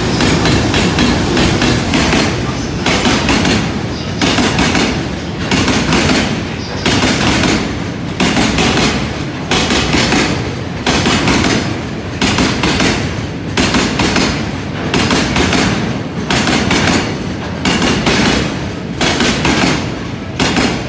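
Taki 1000 oil tank wagons of a freight train passing, their wheels clattering over rail joints in very loud bursts of clacks that come about once a second.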